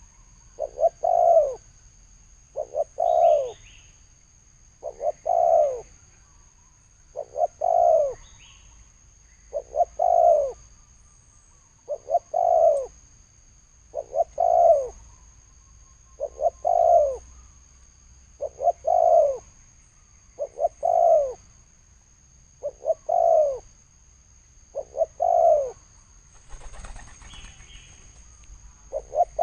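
Spotted dove cooing in the deep 'thổ sấm' calling style. Each phrase is a quick stutter of two or three short notes and then a longer falling coo, repeated about every two seconds, with one longer pause near the end.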